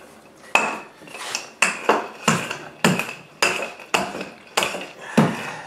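Irregular series of sharp knocks and taps on a stone countertop, roughly one every half second, some with a brief clink, as hands press and spread a large sheet of dough across it.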